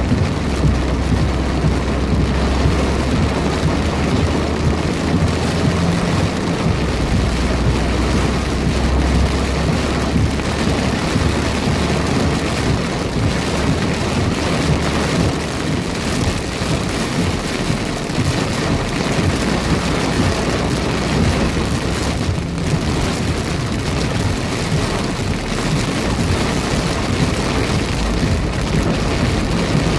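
Heavy thunderstorm downpour: dense, steady rain noise, with a deep low rumble through about the first ten seconds.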